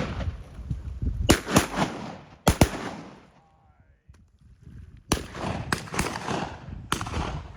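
Shotguns firing at ducks: a quick volley of several shots in the first few seconds, a short lull, then a second volley of shots, each crack trailing off in an echo.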